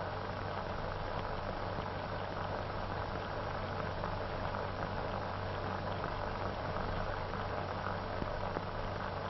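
Steady hiss and crackle of an old optical film soundtrack, with a constant low hum and no other sound.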